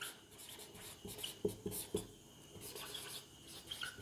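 Whiteboard marker writing on a whiteboard: faint, irregular squeaks and scratches of short pen strokes.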